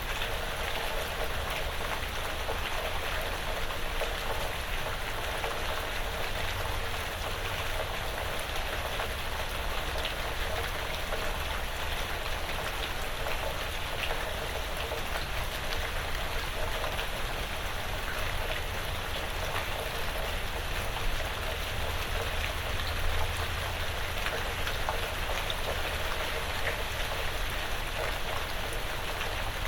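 Light, steady rain pattering on a porch roof and the surrounding woods, with many fine drop ticks over an even hiss and a faint low rumble underneath.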